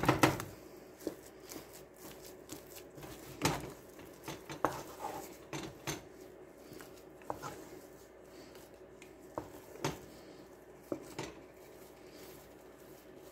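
Wooden spoon working a stiff flour-and-butter dough in a large pot, with irregular knocks and scrapes of the spoon against the pot. The knocks come thick and fast at the start, then thin out to a few scattered ones.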